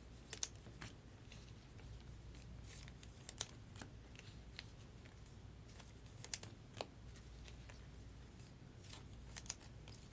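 Trading cards being handled and flipped through: faint scattered clicks and slides of card stock, a few ticks every second or two, over a low steady hum.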